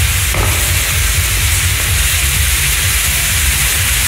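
Ground-firework wheel with spinning coloured pinwheels burning, its fountains giving a steady loud hiss with a low rumble underneath. One brief crack about a third of a second in.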